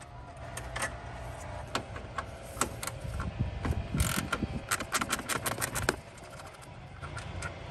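Short 3/8-inch ratchet with a 10 mm socket clicking as it loosens a bolt. Scattered single clicks, then a fast run of clicks about four seconds in.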